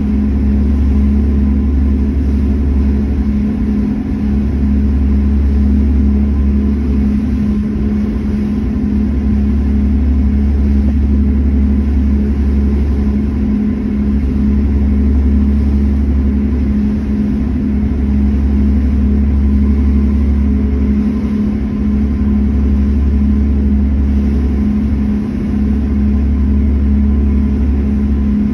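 Passenger ferry under way: its engines give a steady low rumble with a constant hum over it.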